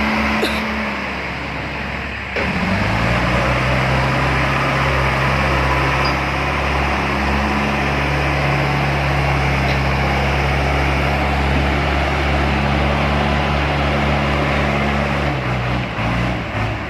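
Heavy diesel engine running under load. Its note dips about two seconds in, then rises to a higher steady pitch for most of the time and drops back near the end.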